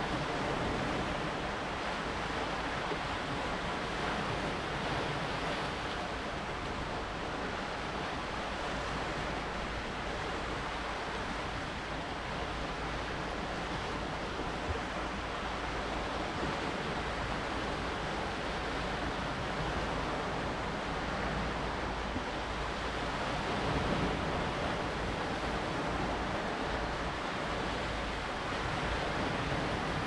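Lake Superior waves washing against a rocky shore: a steady wash of surf mixed with wind, swelling slightly about three-quarters of the way through.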